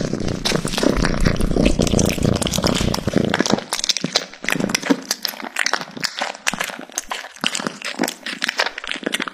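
A cat eating raw chicken, close up: a fast run of chewing clicks and smacks, fuller and louder for the first three seconds or so, then thinner and more spaced out.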